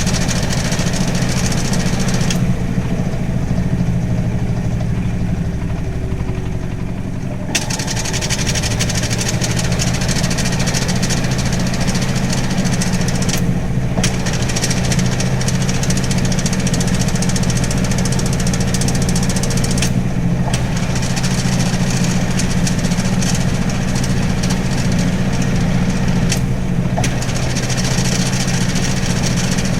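Hitachi NW-6AZ washing machine's non-inverter, belt-driven motor running steadily and empty, with a deep low hum and a steady higher tone above it. A high rattly hiss over the hum drops out for several seconds about two seconds in, and again briefly three times later. The machine is well worn and makes abnormal noises.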